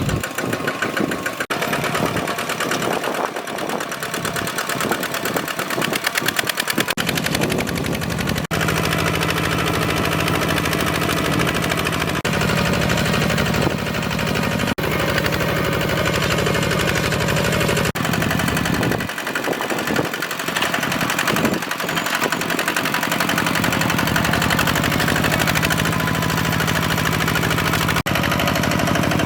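Walk-behind hand tractor's single-cylinder diesel engine running with a fast, steady chugging. A fuller, deeper hum comes in about eight seconds in.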